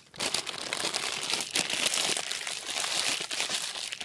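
Plastic packaging bag being crumpled and crinkled in the hands: a dense crackling that starts suddenly and keeps going.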